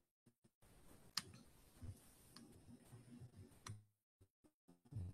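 Near silence broken by faint computer clicks: three sharp ones about a second apart, with a few soft low thuds, as presentation slides are advanced.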